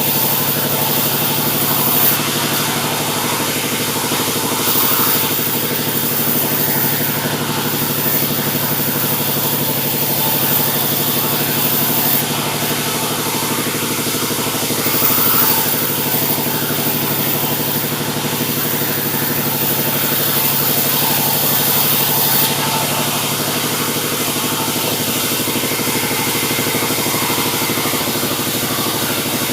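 Sawmill running: a steady engine drone with a constant hum, with a bright high hiss that swells for several seconds at a time and then fades, as the saw cuts through a mahogany log.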